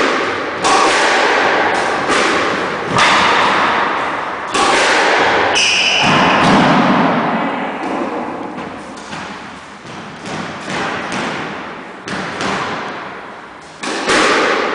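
Squash rally: about a dozen sharp hits of the ball on rackets and court walls, each echoing and fading in the enclosed court. A shoe squeaks briefly on the wooden floor about six seconds in.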